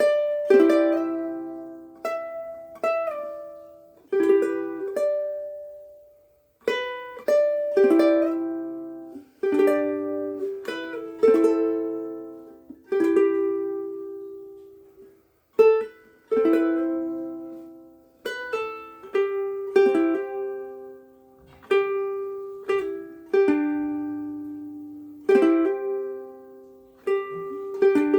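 Oli X1 mahogany soprano ukulele played solo, a slow run of plucked and strummed chords, each left to ring out and fade before the next.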